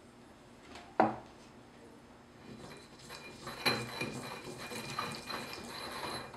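A single sharp knock about a second in, then a ceramic pestle grinding and stirring wet white powder in a ceramic mortar: steady scraping of ceramic on ceramic, with a faint ringing from the bowl.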